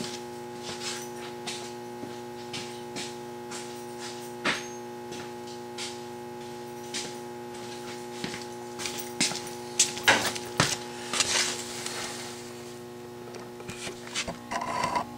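Steady electrical mains hum, several fixed tones, with scattered clicks and knocks of things being handled, busiest about ten to twelve seconds in and again near the end.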